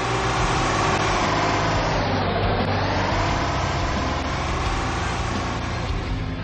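A motor vehicle's engine running, its pitch dropping to a low point about two and a half seconds in and then climbing again as it picks up speed.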